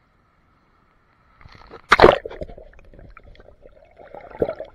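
Seawater splashing loudly about two seconds in as the camera plunges under the surface, followed by muffled underwater gurgling and sloshing, with a second splash near the end.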